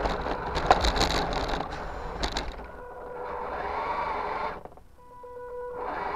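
RC car driving over concrete patio slabs, its wheels and chassis rattling with a few sharp knocks as it crosses the joints, then it stops. Two shorter bursts of motor noise follow.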